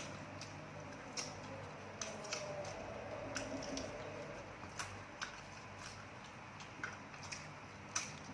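Faint, scattered sharp clicks and taps, about a dozen at irregular intervals, over a low steady hum.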